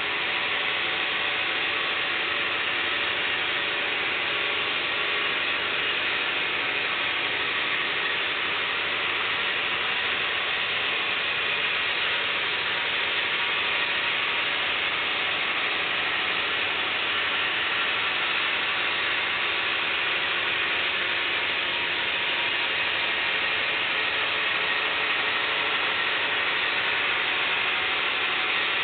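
HO scale model freight train rolling past on its track: a long string of cars giving a steady, even rattling of small wheels and couplers with no let-up.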